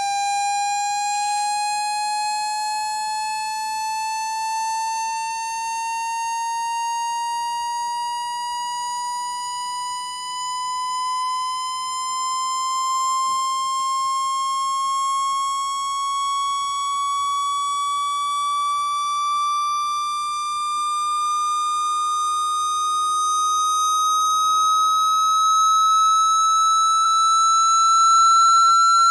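Electronic speaker-cleaning tone, played to shake water or dust out of a phone speaker: a steady, buzzy tone that slowly rises in pitch throughout and gets a little louder near the end.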